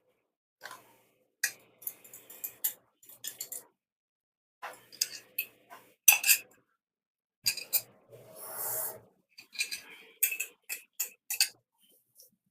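Kitchen utensils and dishes clinking and clattering in short irregular bursts, with a brief rushing hiss a little past the middle.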